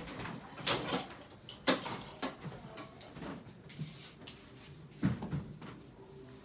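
About half a dozen sharp knocks and clatters of household things being handled and moved, the loudest a heavier bump about five seconds in.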